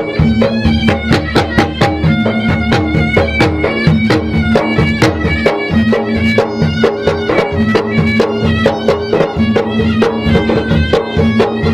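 Traditional Makassar gendang drum music from Maros: two-headed drums beaten in a fast, dense pattern, with a reedy wind instrument holding a melody over a steady drone.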